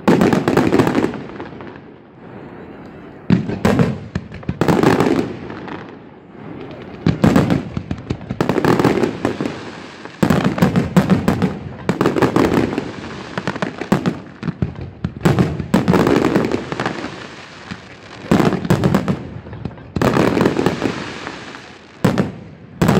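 Aerial fireworks display: shells bursting in dense runs of sharp bangs and crackling, a new cluster every second or two, with short lulls between.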